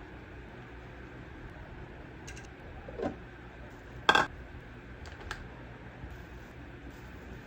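A few scattered light clicks and knocks over a low steady background hum, the loudest a short sharp clatter about four seconds in.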